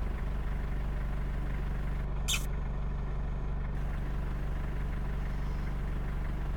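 Car engine running steadily, with a low hum throughout and a short high-pitched sound about two seconds in.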